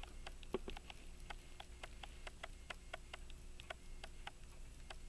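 Light, rapid ticking of an 18-size Illinois key-wind pocket watch movement running, about four to five ticks a second.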